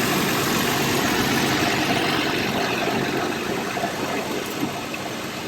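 Toyota Tacoma's engine idling with the air conditioning running on high, a steady hum and rushing noise that eases slightly toward the end.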